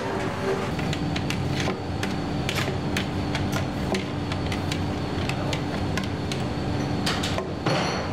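Cucumber salad being scooped out of a plastic bucket with a ladle into a stainless steel gastronorm pan: scattered light clicks and knocks of ladle, bucket and metal, with a couple of short louder rushes near the end, over a steady hum.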